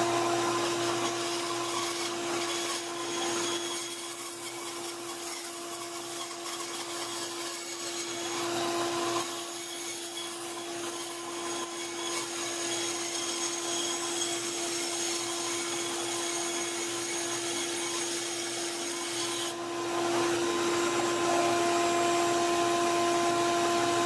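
Benchtop bandsaw running and cutting an edge off a briar block, with a steady motor hum under the rasp of the blade in the wood. About twenty seconds in, the sound gets louder and brighter.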